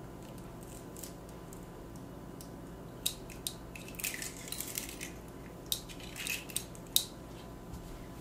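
An eggshell being broken open by hand over a mixing bowl: scattered small clicks and brief crackles of shell, busiest in the middle.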